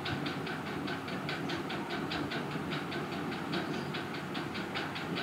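Rapid, even ticking, about six or seven clicks a second, over a steady low hum.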